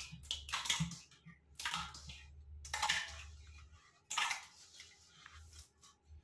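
Steel bowl scraped by hand and knocked against the mouth of a clay pot as thick buffalo curd is emptied into it for churning: a handful of short scraping clinks, about one a second.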